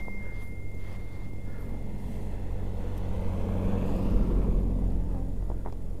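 Car engine running low and steady as the car rolls slowly over snow-packed streets, heard from inside the cabin. The rolling noise swells and fades again past the middle.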